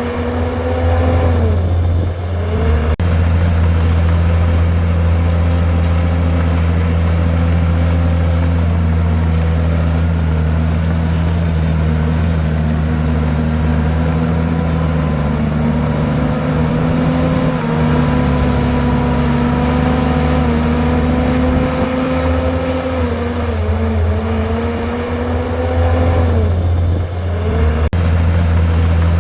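Komatsu bulldozer's diesel engine running steadily, its note sagging briefly twice, about two seconds in and again near the end.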